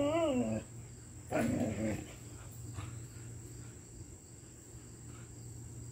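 Dog whining with a wavering pitch that falls away and stops about half a second in, then a short low bark about a second and a half in.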